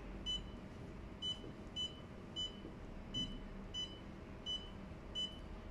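Touchscreen control panel of a hydrafacial beauty machine giving eight short, high electronic beeps at uneven intervals, one for each tap on the up arrow as the ultrasonic handle's intensity is raised step by step.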